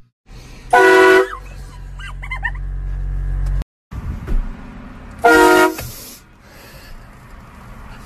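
Truck-mounted train horn fired in two short, very loud blasts about four seconds apart, each a steady multi-note chord lasting about half a second.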